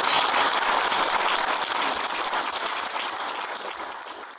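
Audience applauding, a dense clapping that fades out steadily over the last couple of seconds.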